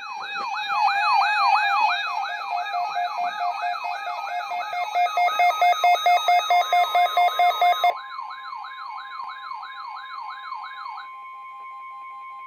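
Weather alert radio alarms sounding a siren-style warble, fast rising-and-falling sweeps about three a second over steady tones. About eight seconds in the loudest part cuts out, and near eleven seconds the warble stops, leaving a steady tone near 1 kHz: the weather radio warning alarm tone.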